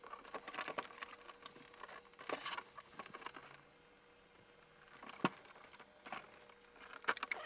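Plastic tape and its glue being peeled and rubbed off a graphics tablet's plastic cover: faint, irregular crackling and scratching with a few sharp clicks, one about five seconds in and a cluster near the end.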